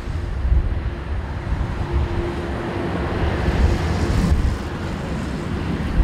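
Four jet engines of a Boeing 747-400 freighter at takeoff thrust as it lifts off and climbs: a steady rumble that grows brighter around the middle, with a faint steady hum. Gusty wind buffets the microphone throughout.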